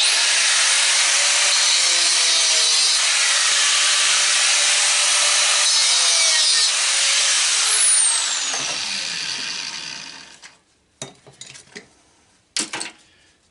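A power tool cutting, running hard for about eight seconds, then winding down and stopping. A few short knocks follow near the end.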